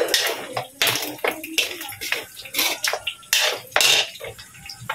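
Metal spatula scraping and clanking against a steel wok, a few strokes a second at an uneven pace, as pork pieces are stirred while they brown, with a sizzling hiss underneath.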